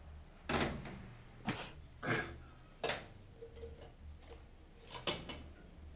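Antique turret clock mechanism: a handful of sharp metal clacks, spaced about a second apart, as its iron levers are worked by a pulled wire, over the clock's faint ticking.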